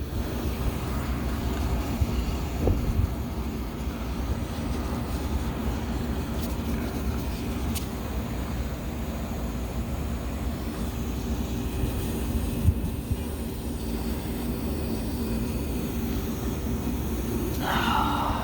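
Steady low mechanical hum: a constant rumble with a few unchanging tones.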